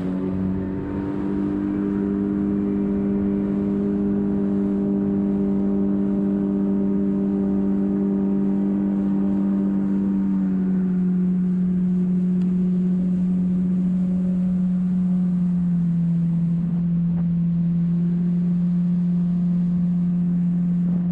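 Jet boat's outboard motor running steadily at speed. Its pitch eases down a little about halfway through and comes back up near the end.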